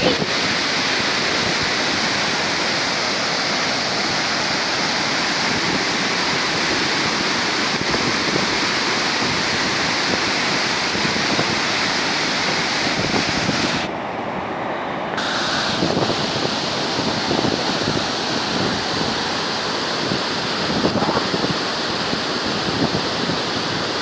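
Waterfall close by: a steady, heavy rush of plunging white water. The sound turns briefly muffled about fourteen seconds in.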